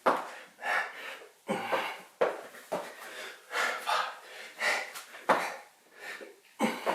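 A man breathing hard in quick, heavy gasps while doing bodybuilder (burpee-style) reps, with sharp knocks from the exercise landing on the floor several times.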